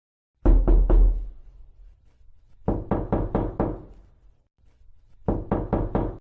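Knocking on a door in three quick groups: three knocks, then five, then four, the last group cut off abruptly.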